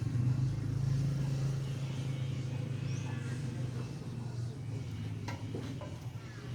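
Steady low engine hum, with a few short clicks near the end.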